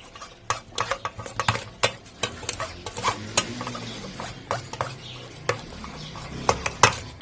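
Metal spoon scraping and pressing cooked tomato pulp through a fine wire-mesh strainer, with irregular clicks and scrapes of the spoon against the mesh and the rim of the steel pan. The tomato purée is being sieved to hold back the skins.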